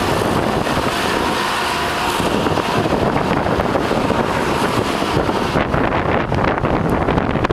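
Wind buffeting the microphone: a loud, continuous rough rumble. Its high hiss drops away a little over five seconds in, leaving the low gusting rumble.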